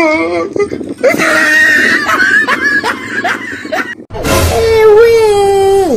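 Music with a voice singing long, wavering notes. Near the end a loud note is held for almost two seconds, then slides down and stops.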